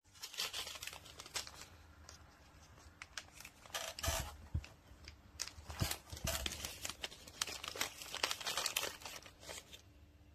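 Crinkling and tearing of a pet-treat pouch being opened and handled, in irregular bursts that die down near the end.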